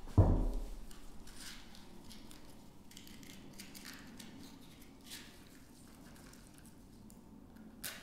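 A dull thump as a glass spirit lamp is set down on the table, then faint rustling and small clicks from a matchbox being opened and handled, with one sharper click near the end.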